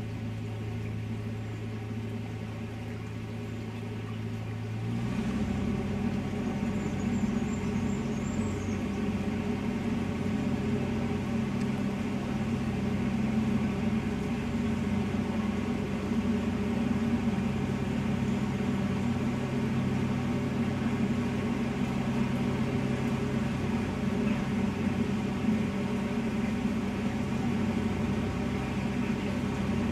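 Narrowboat engine running steadily. About five seconds in, it is opened up: the sound gets louder and its pitch steps up, then holds at the higher speed.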